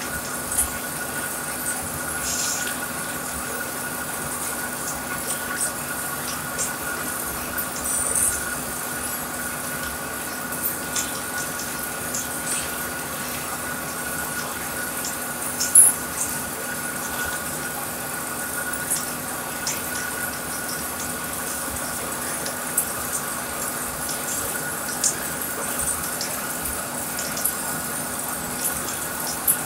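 SARO heavy-duty engine lathe running with a long steel roll in its chuck: a steady gearbox hum with a higher whine over an even hiss, scattered light ticks, and one sharper knock about sixteen seconds in.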